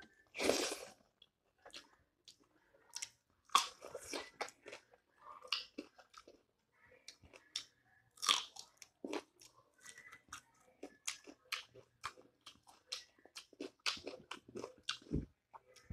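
A person eating by hand, chewing and crunching a mouthful of rice and curry with irregular wet mouth clicks. There is a louder crunch about eight seconds in as a fresh round green akbare chilli is bitten.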